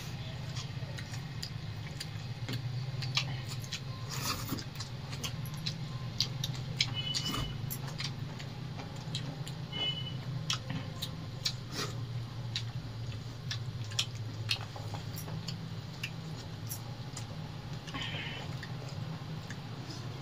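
People eating rice and curry by hand from steel plates: many small scattered clicks and smacks of chewing and fingers working the food on the plates, over a steady low hum.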